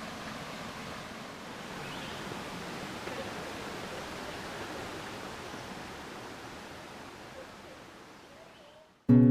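Steady outdoor background noise, an even rushing hiss, that fades out near the end; strummed acoustic guitar music cuts in sharply at the very end.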